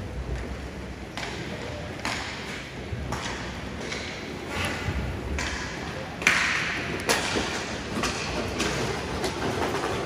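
Ice hockey play on a rink: skates scraping the ice in short strokes every second or so, with a loud sharp knock about six seconds in and a few lighter knocks after it, and voices of players or spectators.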